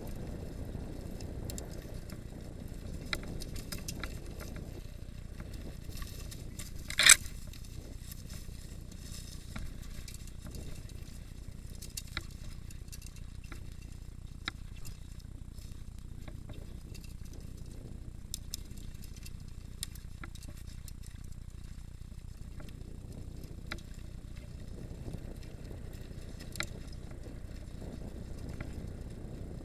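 Mountain bike ridden over a dirt forest trail: a steady low rumble from the tyres with scattered small clicks and rattles from the bike, and one loud sharp knock about seven seconds in.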